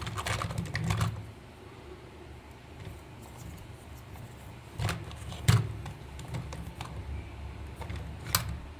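Handling noise from bench work on a small toy: a quick run of clicks and taps, then a few single sharp clicks, the loudest about five and a half seconds in.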